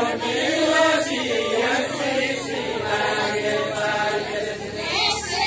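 A group of voices singing a deuda folk song together in a chant-like unison, with no instruments.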